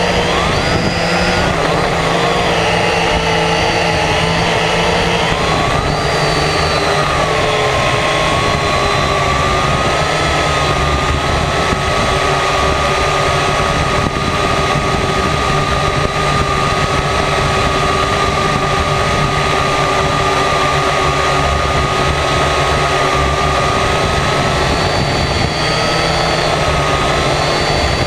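Multirotor drone's motors and propellers heard from its onboard camera: a steady high whine that wavers slightly in pitch, over a low rushing rumble.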